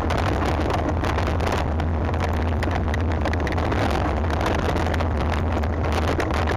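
Wind rushing over the microphone, mixed with the rattle and tyre noise of a mountain bike riding fast over a rough trail, full of small knocks and clatters.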